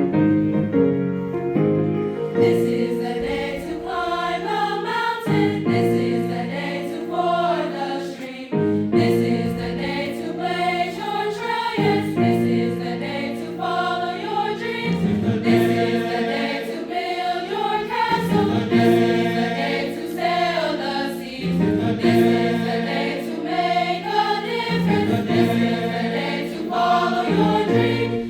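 High school choir singing in several parts, in phrases of about three seconds each.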